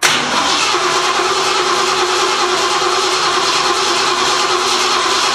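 Car engine being cranked by its starter in an attempt to start, a steady unbroken cranking that begins abruptly and holds at an even level without the engine catching.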